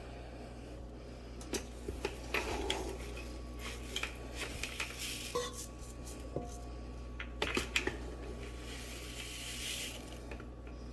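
Kitchenware being handled: scattered light clinks, taps and knocks of pots, dishes and utensils, with a short rustling hiss near the end.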